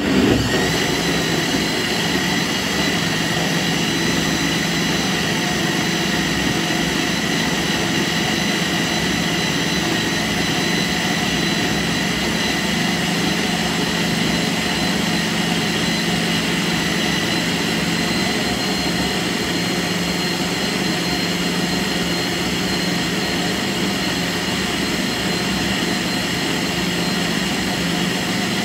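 Electric countertop blender starting abruptly and running steadily, its motor giving a constant whine as it blends a jug full of thick fruit-and-vegetable smoothie.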